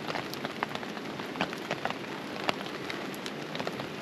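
Heavy rain falling on a camping tarp and tent: a steady hiss with many separate sharp drop taps at irregular intervals.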